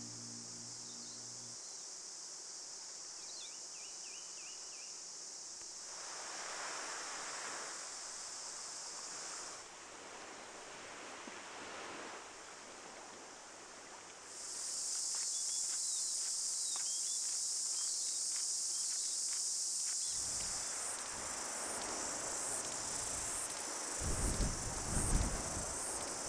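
A steady, high shrill insect chorus, typical of cicadas in summer bush. It stops a little before halfway and returns louder about 14 seconds in. A few short bird chirps come about three seconds in, and low thumps and rumbling come near the end.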